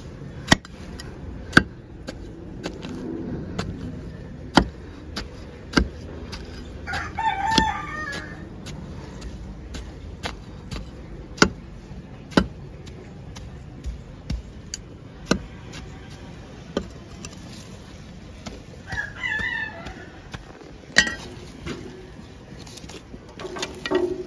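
A flat steel trowel chopping and scraping into a potted mulberry tree's root ball to trim it down, making irregular sharp knocks about every second or two. A rooster crows twice, about 7 seconds in and again about 19 seconds in, quieter than the knocks.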